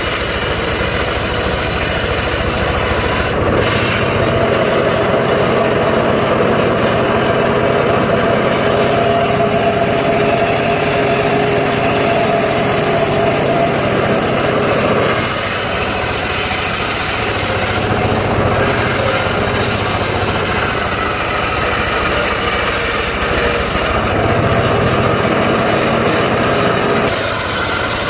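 Homemade engine-driven circular saw running steadily. Its tone changes for stretches of several seconds: from about 3 s in to 15 s, and again near the end.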